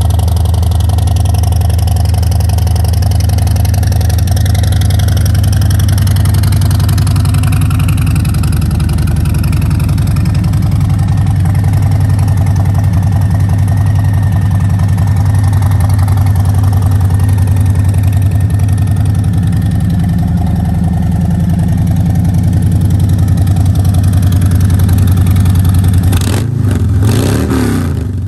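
Harley-Davidson Road Glide Special's Milwaukee-Eight V-twin idling steadily through its exhaust, with a deep, even pulsing note. A few knocks and a dip in level come near the end.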